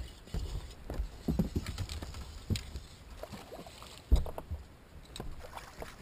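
Scattered knocks and low thumps on a bass boat's deck as a hooked bass is fought and netted, the loudest a sharp thump about four seconds in.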